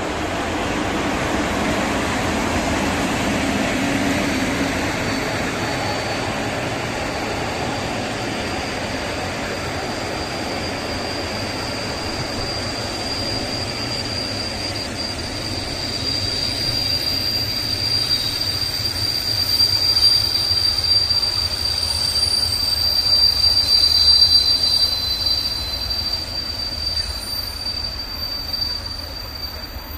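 Freight train of tank wagons and hopper wagons rolling past behind an electric locomotive, with a steady high-pitched wheel squeal that sets in a few seconds in and is loudest a little past the middle.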